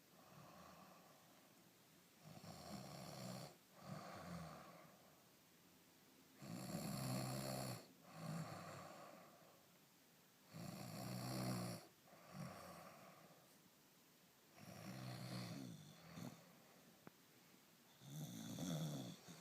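Sleep snoring in a slow, regular rhythm: a stronger snore about every four seconds, each followed by a softer breath.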